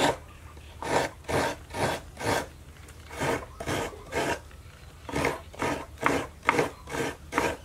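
A coconut half scraped against the serrated blade of a seated coconut grater. The rasping comes in repeated strokes, about two a second, in three runs with short pauses between them.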